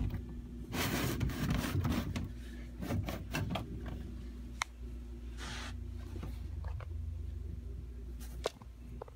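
Rustling and rubbing over a steady low hum: a burst of it about a second in, lasting about a second, another briefly around the middle, and a couple of sharp clicks, the last near the end.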